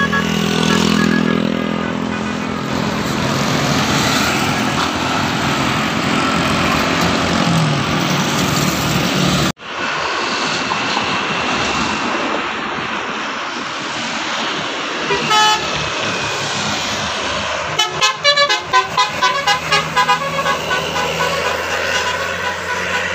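Buses passing with engines running and sounding telolet horns, multi-tone musical air horns. About three-quarters of the way through, a fast warbling run of horn notes plays for a few seconds.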